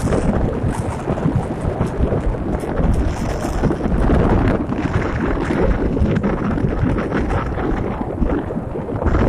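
Wind buffeting the microphone: a loud, uneven rumble with no clear tones, strongest in the low end.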